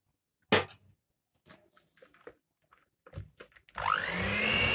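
A single knock about half a second in and a few faint clicks, then near the end an electric hand mixer switches on, its motor whine rising quickly to a steady pitch as the beaters run in creamed butter and sugar.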